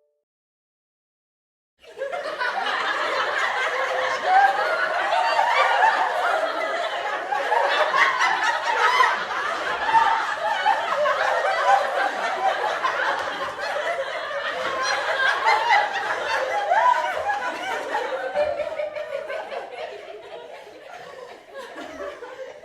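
A group of people laughing together, many voices overlapping, starting after a second or two of silence and thinning out a little near the end.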